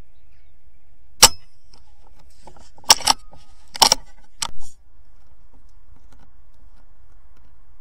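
Air rifle shot, a single sharp crack about a second in, followed by a quick run of sharp metallic clicks and knocks around three to four and a half seconds in.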